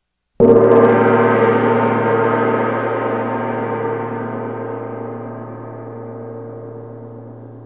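A large gong struck once about half a second in, its deep, many-toned ringing dying away slowly. It is the gong the Skull Island natives sound to summon Kong to the sacrifice.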